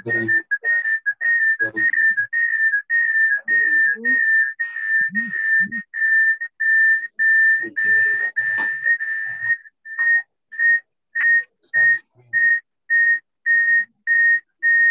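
A high-pitched steady tone heard over an online video call: nearly continuous at first, then from about ten seconds in chopped into short, even beeps about twice a second.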